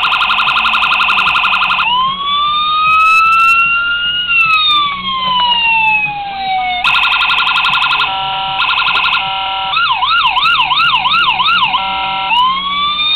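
Miniature 4-tone electronic siren kit in a 1/24 scale model police car, cycling through its tones. First comes a fast warble. A slow wail then rises and falls over about five seconds. A fast pulsing tone and a hi-lo two-pitch alternation follow, then about two seconds of quick yelp sweeps. Near the end the wail starts rising again.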